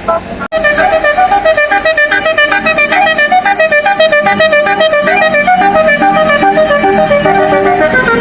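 A fast melody of quick, evenly paced notes in several voices, starting abruptly after a brief dropout about half a second in.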